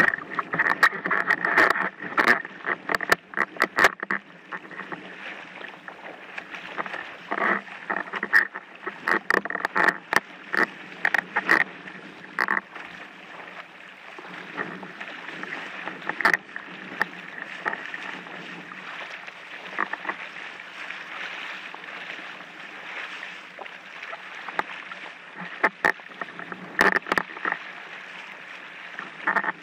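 Windsurf board moving across choppy sea: a steady rush of water under the hull with frequent sharp slaps and knocks as the board hits the chop, thickest in the first few seconds and again in clusters later on.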